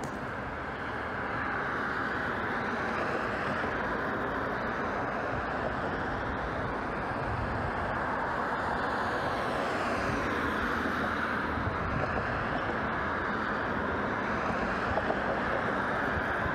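Road traffic: cars passing along a road, a steady rush of tyre and engine noise that swells and eases as each car goes by.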